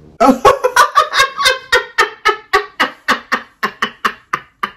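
A woman laughing hard in a long run of rhythmic ha-ha bursts, about four a second, loud at first and slowly getting quieter.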